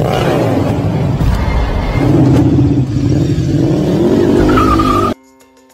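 Racing motorcycle engine revving in an edited intro mix, loud and dense, with the pitch swinging up and down. It cuts off abruptly about five seconds in, leaving faint steady tones.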